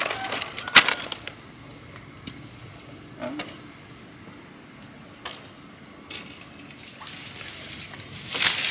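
Night insects calling, a steady high trill with a pulsed chirp about three times a second. A sharp knock comes about a second in, and a loud rustle of dry leaves and brush near the end.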